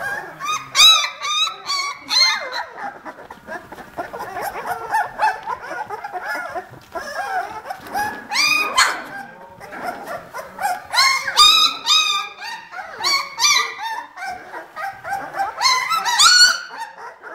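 Vizsla puppies about 18 days old making many short, high-pitched squeaks and whines that overlap throughout. The calls come loudest in clusters: about a second in, around the middle, and near the end.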